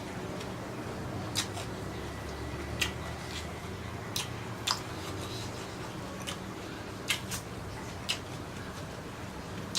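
A person eating squid and shrimp: short, sharp bites and mouth smacks at irregular intervals, about seven of them, over a steady low hum.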